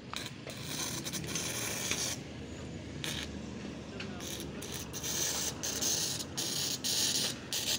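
Arc welding on steel roof-truss bars: a frying, crackling hiss that stops and restarts several times in short breaks.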